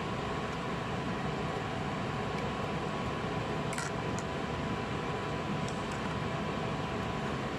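Steady background hum and hiss with a faint thin steady tone, like a fan or ventilation unit running, and a few faint light clicks.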